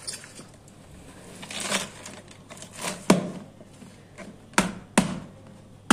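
Shredded cabbage and carrot being pushed by hand into a thin plastic jar: soft leafy rustling and scrunching, broken by four sharp clicks of the plastic jar and hand in the second half.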